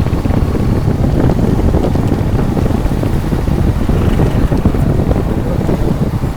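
Wind buffeting the microphone of a rider on the move: a loud, fluttering rumble over the noise of the ride.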